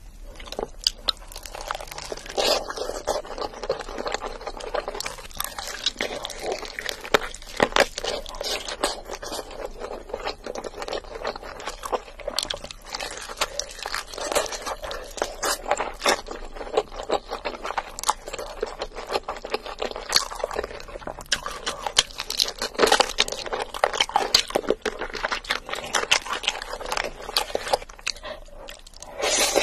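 Close-up eating of spicy sauced fried chicken: crisp crunches from bites into the coated chicken, mixed with wet chewing, in a dense run of sharp crackles.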